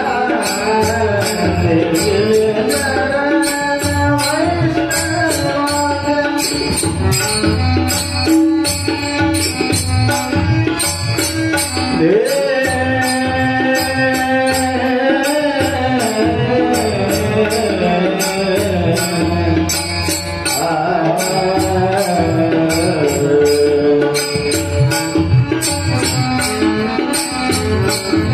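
Marathi devotional bhajan: a man singing with a sharp voice over sustained accompanying tones, with a drum and evenly spaced metallic cymbal strikes keeping the beat.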